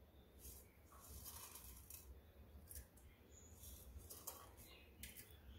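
Faint, scattered crackling of fenugreek seeds frying in a small pool of hot oil in a clay pot, over a steady low hum.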